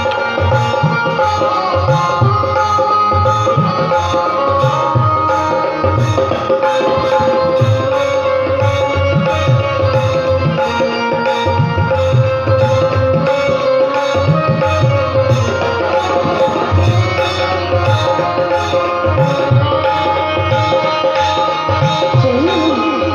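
Instrumental interlude of a Hindi bhajan: tabla playing a steady, busy rhythm under sustained melody tones.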